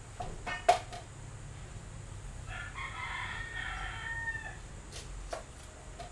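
A rooster crowing once in the middle, a call about two seconds long that falls in pitch at the end. Around it, a kitchen knife knocks on a cutting board while herbs are chopped: a few sharp knocks near the start, the loudest about a second in, and one more near the end.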